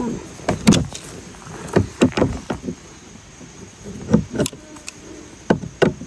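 Irregular metal clicks and clinks, about nine in all, from pliers working a nut and bolt on the steel lever linkage of a backpack sprayer while the nut is tightened.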